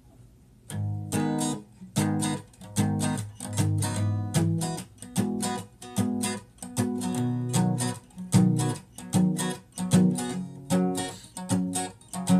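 Acoustic guitar strummed in a steady rhythm, the instrumental introduction to a song; the playing starts about a second in.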